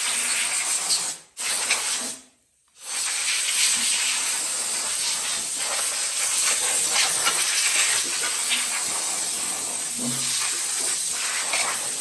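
Compressed-air blow gun hissing in long blasts as it blows dirt and fire debris off a burnt small-block engine. The air stops briefly about a second in, then cuts out for most of a second around the two-second mark before running steadily again.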